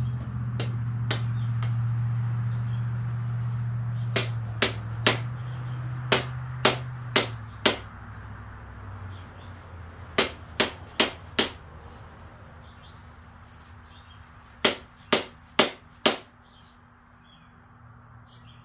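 Mallet striking the end of a wooden axe handle to seat the axe head on it: sharp knocks in bursts of about four, roughly two a second, with pauses between. A low hum fades away over the first several seconds.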